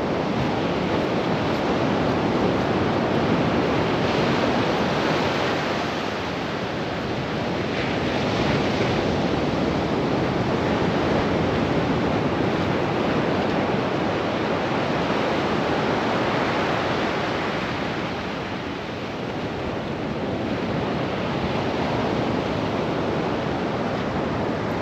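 Sea surf washing onto a beach, a continuous rush that swells and eases slowly, with some wind on the microphone.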